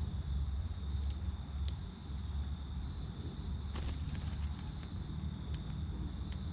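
Outdoor ambience: a steady low rumble and a steady thin high tone, with a few light ticks and taps scattered through, the loudest about four seconds in.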